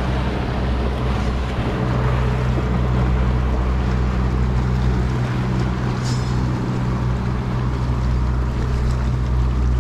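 A motorboat's engine running steadily, a low even hum, over a hiss of water and wind.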